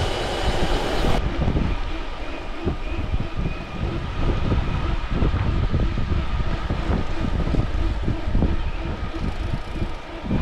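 Bicycle riding heard from a chest-mounted action camera: wind rushing over the microphone and a steady low rumble of rolling tyres, with many small irregular rattles and knocks from the bike. A high hiss drops away about a second in.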